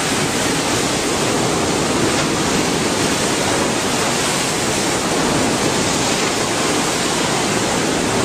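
Loud, steady rushing noise that stays even throughout, with no separate events in it.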